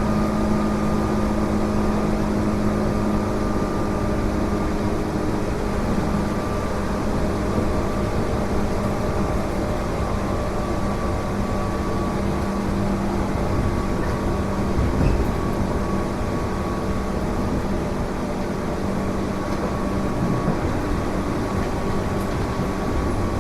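Running sound inside a Tobu 8000 series resistor-controlled electric train: a steady rolling rumble with a constant low hum and a faint high tone above it. The car gives off a constant abnormal noise, which the recordist puts down to a possibly faulty distribution panel.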